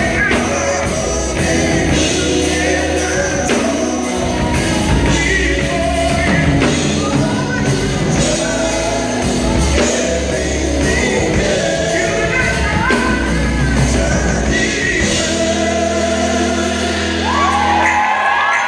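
Live gospel band with several singers on microphones, backed by drum kit, electric guitars and keyboard, with some shouts and whoops among the vocals. The band cuts off about a second before the end, leaving voices calling out.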